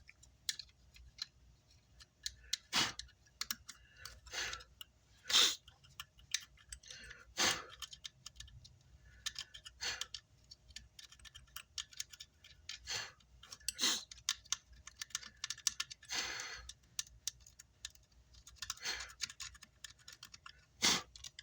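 Irregular clicks, taps and short scrapes of tools and hands working over an amplifier circuit board as excess solder flux is cleaned off.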